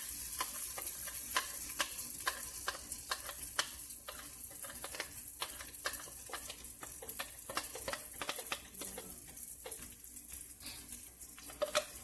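Oat pancake batter frying in hot coconut oil in a frying pan: a steady sizzle with frequent sharp crackles and pops. In the first half a spatula is working the batter into shape in the pan.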